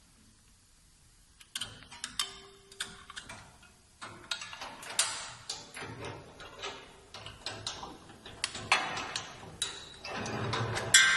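Mechanical clicking and clattering in an irregular run of sharp ticks and knocks, typical of a machine mechanism or metal parts being worked. It starts about a second and a half in. Near the end there is a louder metallic clank that rings briefly.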